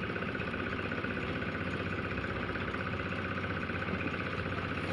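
An engine running steadily at an even speed, with a fast, regular pulse and no change in pitch.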